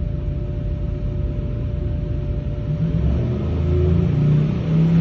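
Billet-block Pro Stock V8 running on an engine dyno, steady at first, then getting louder from about three seconds in.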